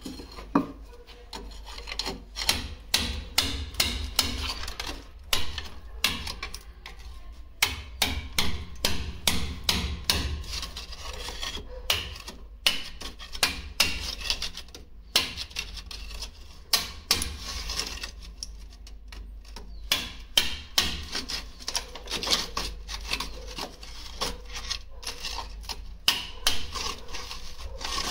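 Hand tools working on hard material: irregular sharp knocks and taps, several a second at times, with scraping and rasping in between.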